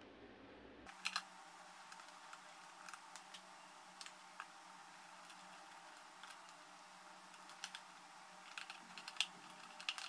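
Faint, scattered small clicks and taps of a screwdriver and wire end working the screw terminals of a plastic relay socket, a couple about a second in and more often near the end.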